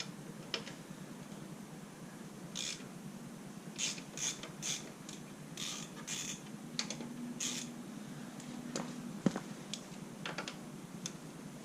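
Hand tools working to loosen screws at a motorcycle's front wheel: irregular metallic clicks and short scraping sounds, with one sharp click about nine seconds in.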